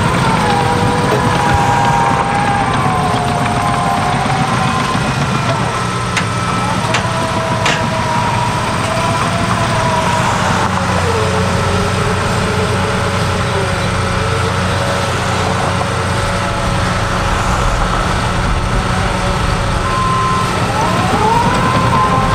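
Cat D6K2 bulldozer working: a steady diesel engine drone under a whine that slowly rises and falls in pitch, with a couple of sharp clanks about seven seconds in.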